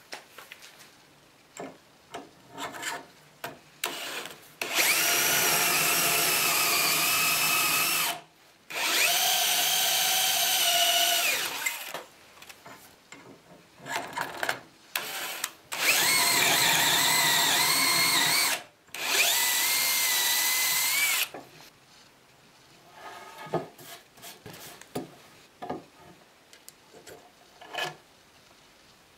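DeWalt cordless drill boring dowel holes into wood through the steel bushing of a dowelling jig: four runs of about three seconds each, in two pairs. Small clicks and knocks of handling the jig and drill come between the runs and after them.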